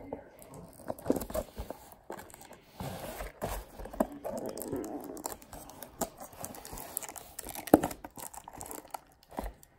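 A cardboard trading-card box being torn open by hand: irregular tearing and crinkling with scattered knocks and scrapes of handling.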